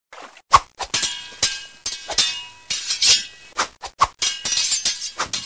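A rapid, irregular run of about fifteen sharp clinking and crashing impacts with a bright ringing, like glass or metal being struck.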